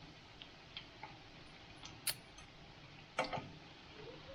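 Donut dough cooking in hot oil: a faint steady sizzle with scattered small pops and clicks, and one louder knock a little past three seconds in.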